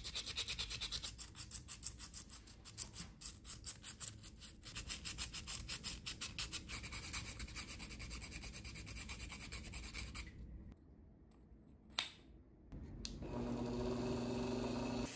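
Sandpaper rubbed quickly back and forth by hand over a small bowl, a fast run of rasping strokes, several a second, for about ten seconds. It stops, a single click follows, and near the end a handheld rotary tool with a sanding disc starts running with a steady hum.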